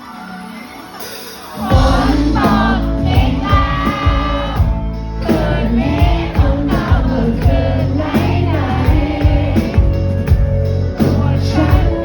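Live pop-rock band playing with a sung lead vocal, heard through a phone's microphone. It opens quietly, then about a second and a half in the full band comes in loud under the singing.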